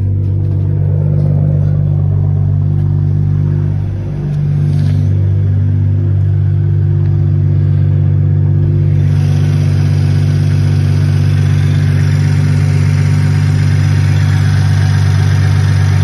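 BMW M240i's turbocharged B58 inline-six idling steadily shortly after a cold start, its exhaust running through a catted downpipe with no muffler. There is a brief dip in loudness about four seconds in.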